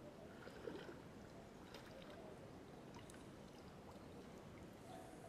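Near silence, with a few faint clicks and small handling noises.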